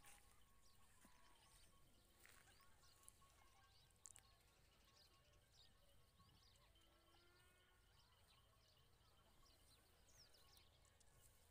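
Near silence: faint outdoor ambience with scattered short, high chirps from distant birds.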